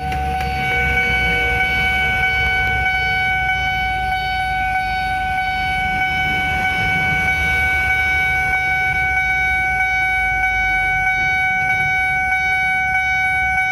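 Railway level-crossing warning alarm of the NS type, sounding one continuous steady electronic tone while the crossing barrier lowers.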